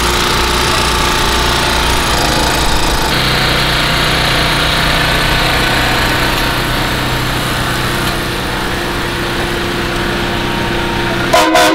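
An engine running steadily at idle, its hum changing in tone about three seconds in, with a brief loud clatter near the end.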